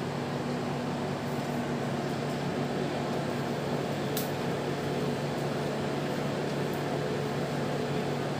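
Steady electric fan hum with a few constant tones, and one sharp click about four seconds in.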